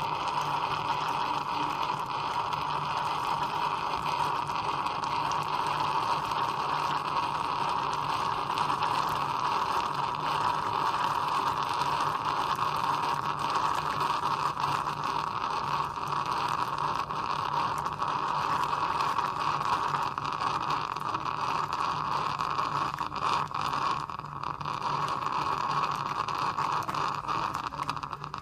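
Vintage Velox electric espresso maker forcing brewed coffee out of its spout into a glass measuring cup: a steady hissing gurgle with crackle and splatter, over a low steady hum. It eases briefly about three-quarters of the way through.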